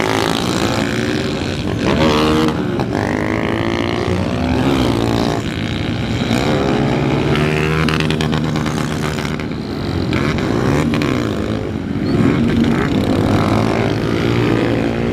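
Several small motorcycles running and revving as they ride past, their engine notes rising and falling over one another; many of them are on aftermarket exhausts rather than stock ones.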